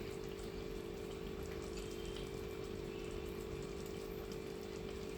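Gravy simmering in a pan on a gas burner: a steady faint hiss with a low steady hum under it.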